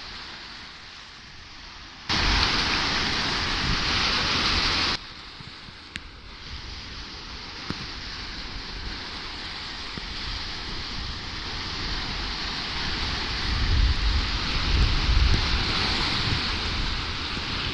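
Strong wind blowing across the microphone over the wash of surf on the shore. A much louder stretch of about three seconds starts and stops abruptly, and low gusty rumbles build near the end.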